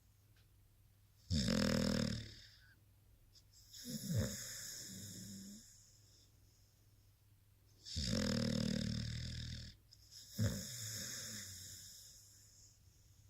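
Blue-nose pit bull snoring. Two slow breaths, each a loud snore followed about two seconds later by a softer, longer one.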